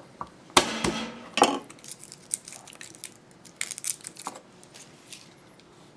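A chef's knife blade knocked flat onto a garlic clove on a wooden cutting board, two sharp knocks with a short metallic ring, to crack the skin loose. Then a light crackle as the dry garlic skin is peeled off by hand.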